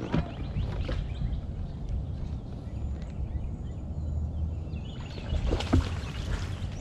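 Steady low rumble of wind and water around a fishing kayak under way, with a few sharp knocks about a second in and again near the end, and faint bird chirps in the middle.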